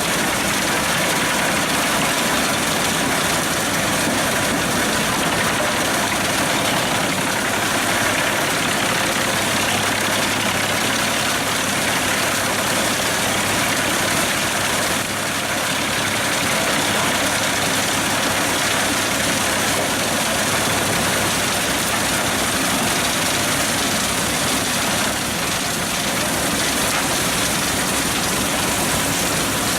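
Pezzolato PTH 700 G drum wood chipper, driven from a Fendt tractor's PTO, running steadily together with the tractor engine as one loud, dense, even noise. It eases off briefly about halfway through and again near the end.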